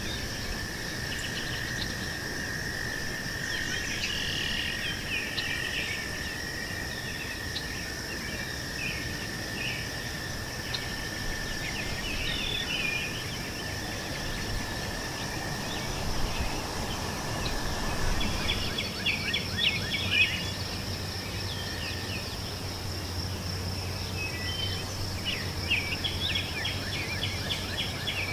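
Meadow ambience: insects trill steadily and continuously, with birds chirping and singing in short phrases over them. A second, lower insect trill stops about two-thirds of the way through.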